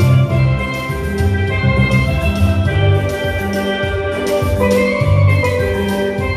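Steelpan playing a gospel melody, its notes ringing over a drum kit with cymbals and a deep bass line.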